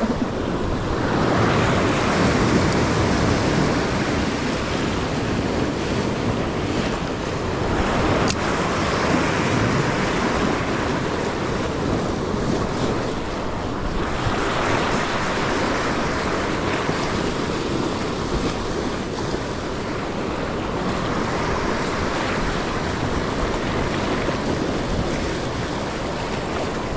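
Sea waves breaking and washing over shore rocks, the surf swelling and easing every several seconds, with wind buffeting the microphone.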